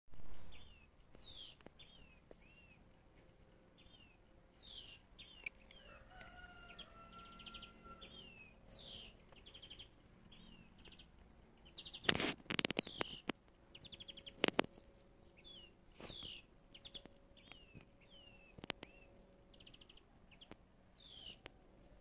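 A small songbird in a tree sings a short phrase over and over, about every four seconds: a quick falling whistle, a few chirps and a fast trill. A lower, steadier whistle sounds briefly behind it. A cluster of loud clicks and knocks breaks in about twelve seconds in, and another about two seconds later.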